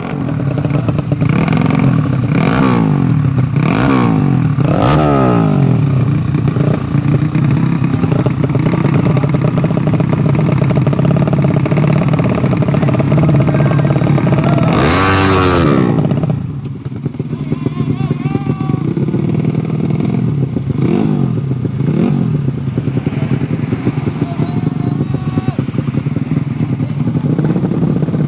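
Race-tuned underbone motorcycle engines running, revved up and down several times in the first few seconds over a steady drone. About fifteen seconds in, one bike goes past loudly, its pitch rising and then falling over a second or two. After that the engines run somewhat quieter, with a few small revs.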